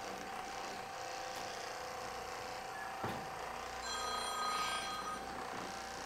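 Percussion massage gun running against a person's back with a steady motor hum. A single click comes about three seconds in, and about a second later a short electronic ring sounds for just over a second, the loudest thing here.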